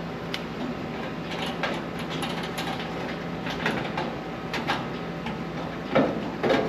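Small metal panel clamps being worked loose and pulled off sheet metal: scattered light metallic clicks and clinks, with a couple of louder metal clunks near the end.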